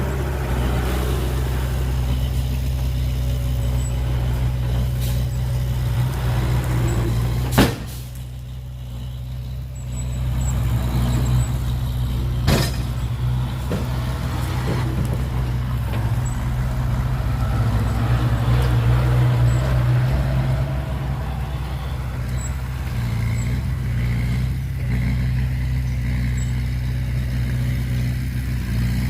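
Heavy truck's diesel engine running steadily, with a sharp knock about seven and a half seconds in, after which the engine sound briefly drops, and a second click about five seconds later.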